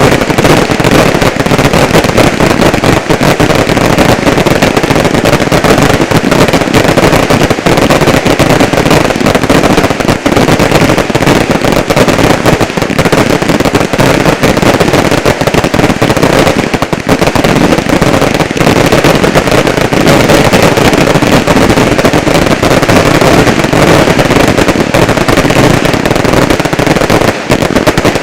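Fireworks finale barrage: a dense, unbroken string of rapid loud bangs and reports, easing a little only near the end.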